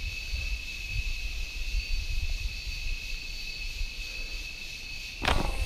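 Steady high insect buzz, then a little over five seconds in a single sharp snap as a drawn fishing slingshot's rubber bands are released and the arrow is shot.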